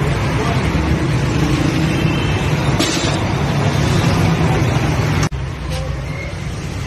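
Street noise: a steady low rumble of traffic with people's voices, broken off suddenly about five seconds in.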